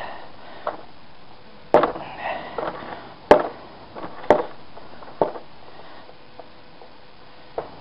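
Screwdriver working at a screw in a vacuum cleaner's hard plastic housing: a handful of sharp, irregularly spaced clicks and knocks of metal on plastic, three of them louder than the rest.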